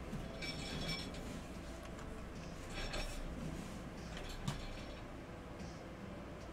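Faint handling noises: light clinks and rustles of small hard objects, with one sharp click about four and a half seconds in.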